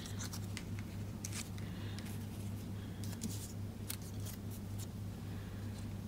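Faint paper handling: light rustles and small taps of paper cutouts being picked up and pressed onto card, over a steady low hum.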